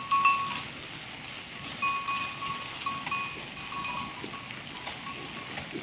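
Metal bell hung on a grazing animal clanking irregularly, several rings with the loudest about a quarter second in, over a steady faint hiss.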